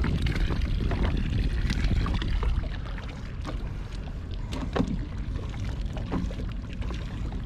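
Water splashing and lapping against the side of a small fishing boat under a steady low wind rumble, with scattered light knocks and clicks.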